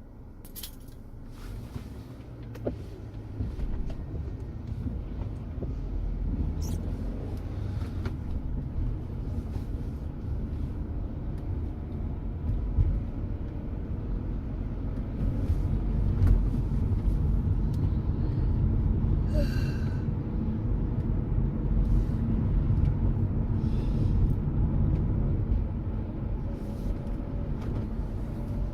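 Car engine and tyre rumble heard from inside the moving car, a steady low drone that grows louder a few seconds in and again about halfway through as it picks up speed. A short high tone sounds about two-thirds of the way through.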